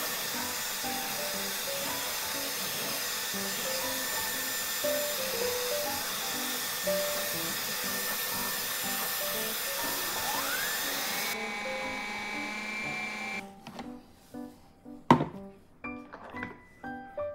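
A handheld hair dryer styler blowing a steady rush of air, with light background music playing over it. About ten seconds in a whine rises and the air rush stops soon after, leaving the music with a few sharp clicks.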